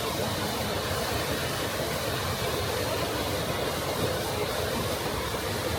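Steady, unbroken rush of falling water from the Düden Waterfall.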